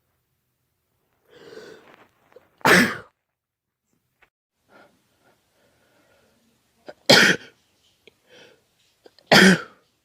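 A man sneezing three times, loud and sharp, about a quarter of the way in, about two-thirds through and near the end; the first follows an audible breath in. These are allergy sneezes brought on by pollen.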